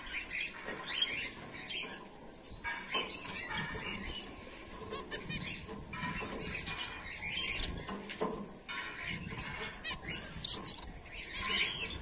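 A colony of caged Bengalese finches calling: many short, high chirps and squeaks overlapping at irregular intervals.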